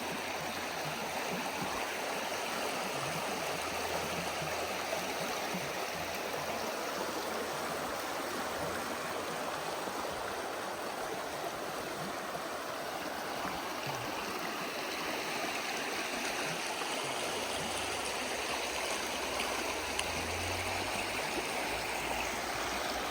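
Mountain stream rushing, a steady noise of flowing water.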